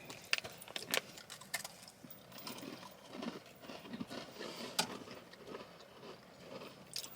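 Quiet, irregular crackles and crunches of people biting and chewing a crisp snack, the Waffle Mate cookies.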